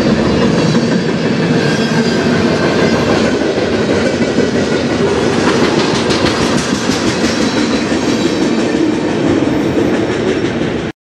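Freight train cars (covered hoppers, boxcars and tank cars) rolling past close by, steel wheels rumbling and clicking steadily on the rails. The sound cuts off suddenly near the end.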